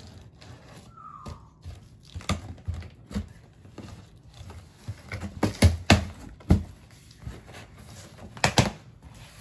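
Scissors cutting the packing tape on a cardboard box, then the box's cardboard flaps being pulled open, with scattered knocks and scrapes; a few loud thumps on the cardboard a little past halfway and again near the end.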